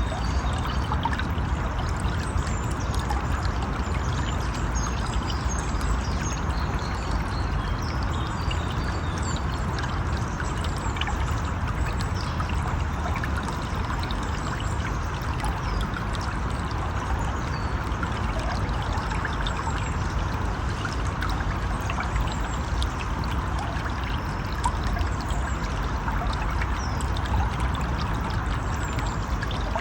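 River water flowing steadily, a constant rushing and trickling.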